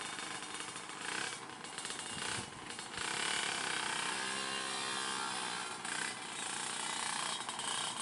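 Heavy diesel truck engine labouring on a steep climb, with a steady rattling clatter; about halfway through, a deeper pitched tone swells and falls away for a second or so.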